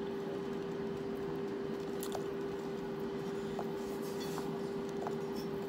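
Fingers squishing and mixing soft food in a metal plate while eating by hand, with a few faint clicks, over a steady hum.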